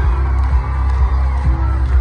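Live band music with heavy bass and drum hits, heard from within the audience, with the crowd cheering and whooping over it.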